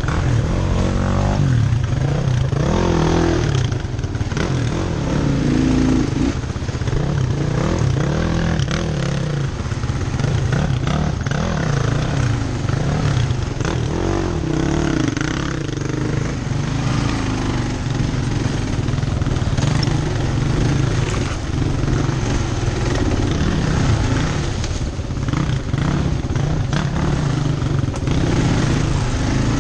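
Kawasaki KLR650's single-cylinder engine running under the rider, its revs rising and falling with the throttle as the bike works along a rough trail.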